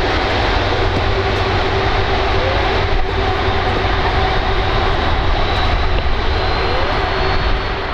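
Jet engines of an Airbus Beluga A300-600ST running steadily: a low rumble under a loud rushing noise with a faint steady whine, easing slightly near the end.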